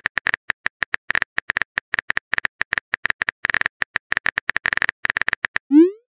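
Phone keyboard typing sound effect: a quick, uneven run of short tapping clicks as a text message is typed. Near the end comes a short rising swoop as the message is sent.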